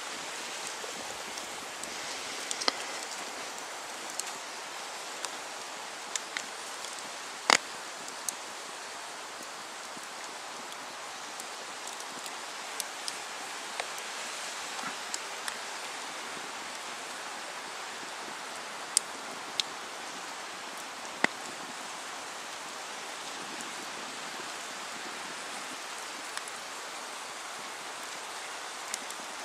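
Steady rustle of wind through the trees, with scattered sharp pops and snaps from a small wood campfire, the loudest about seven seconds in.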